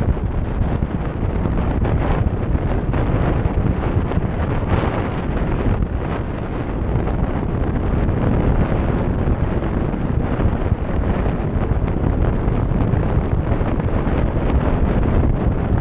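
Wind buffeting the microphone of a camera on a motorcycle at road speed, a steady heavy rumble over the noise of the moving bike.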